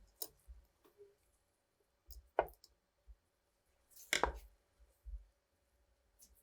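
A few scattered clicks and light knocks of small metal parts and tools being handled, with two louder knocks about two and a half and four seconds in, over a faint steady hum.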